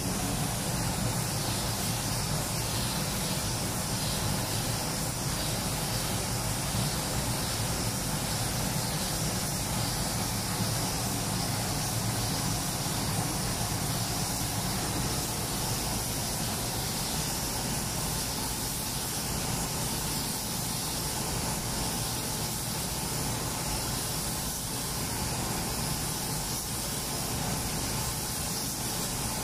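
Compressed air hissing steadily from a gravity-feed paint spray gun as it atomises paint onto a car door, with a steady low hum underneath.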